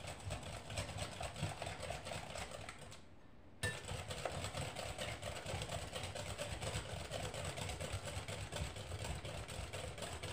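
Wire whisk beating cake batter by hand in a mixing bowl: a fast, steady run of light clicks and swishes. It drops out for about half a second about three seconds in, then carries on.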